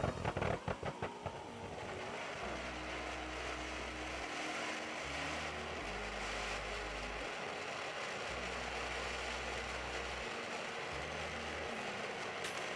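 Mount Magma fountain firework burning with a steady spraying hiss, with a quick run of sharp crackles in the first second or so.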